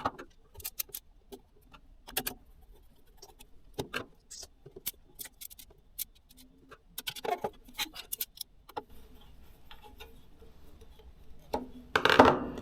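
Irregular small clicks and taps of metal parts as a hard drive is fitted and screwed into an NVR's metal case, with a louder clatter of handling near the end.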